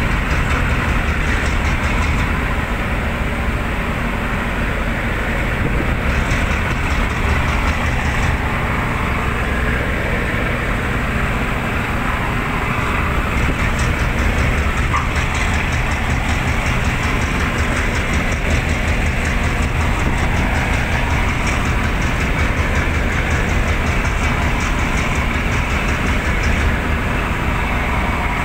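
Steady drone of ship engines and machinery: a low hum under a constant rushing noise, unchanging throughout.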